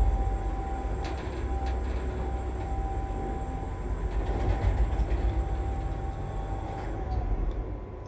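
Schindler Smart MRL traction lift, heard from inside the car while it descends: a low rumble with a steady motor whine. The whine tapers away near the end as the car slows for the landing.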